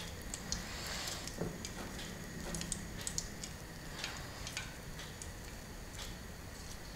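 Faint scattered clicks and soft handling noises as besan dough is rolled by hand and pressed into the small steel barrel of a sev press.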